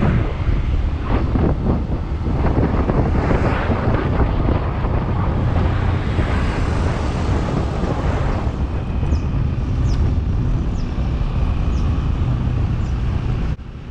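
Wind rushing over the microphone while riding a road bike, a steady low rush that cuts off abruptly just before the end.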